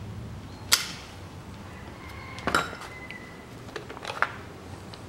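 Metal clinks of a car starter motor's parts being handled and pried apart by hand during disassembly: four short sharp clinks, the second with a brief metallic ring.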